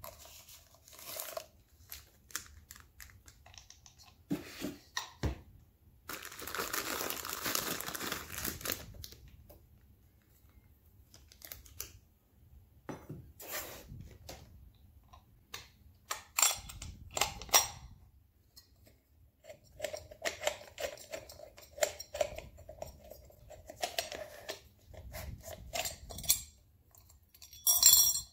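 Plastic wrap crinkling and tearing as it is pulled off a stainless steel sink basket strainer, mixed with scattered clicks and knocks of the parts being handled and set down. Near the end there are a few bright metal clinks from the steel strainer pieces.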